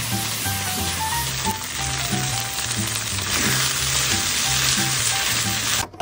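Chicken hearts and sliced onion sizzling as they fry in olive oil in a small pan, stirred with a silicone spatula. Background music with a bass line plays along, and the sizzling cuts off just before the end.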